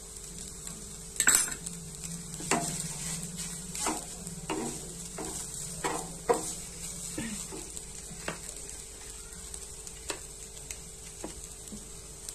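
Wooden spatula stirring and tossing instant noodles in a frying pan, scraping and clacking against the pan about once a second, over a light sizzle of the noodles frying.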